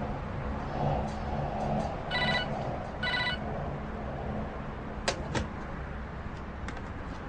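Mobile phone alert: two short electronic tone bursts about a second apart, then two sharp clicks in quick succession.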